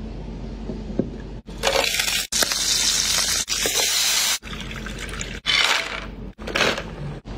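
Tap water running and splashing into a basin as raw shrimp and clams are rinsed, a long stretch of about three seconds and then two short bursts, each cut off abruptly.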